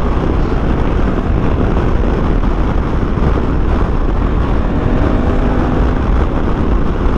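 Steady wind and road noise from a moving Honda Africa Twin motorcycle, with its parallel-twin engine running underneath.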